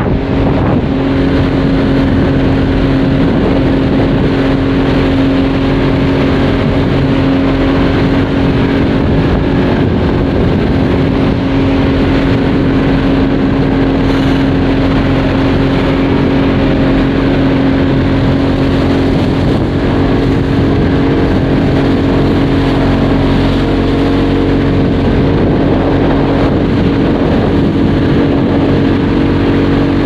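Motorboat engine running at a steady speed, a constant hum with one strong unchanging tone, over the rush of water past the hull.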